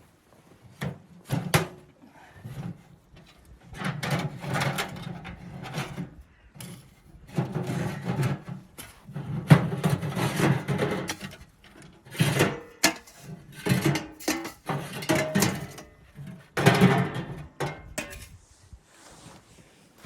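A series of irregular knocks and scrapes, like wood being handled, coming in bursts with short pauses between them.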